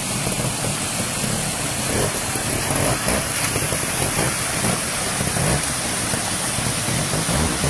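Trials motorcycle engine running at low revs, pulsing unevenly as the rider feeds the throttle to climb over rocks in a stream, over a steady rush of flowing water.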